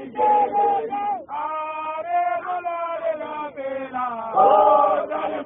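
A group of men chanting a Zion Christian Church mokhukhu song, with long held, sliding notes and a louder, fuller swell of voices about four and a half seconds in.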